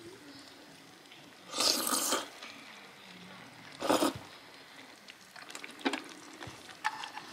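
Sukiyaki broth simmering in an aluminium mess tin on a camp stove. Two short, loud liquid bursts come about two seconds apart, followed by light clicks near the end.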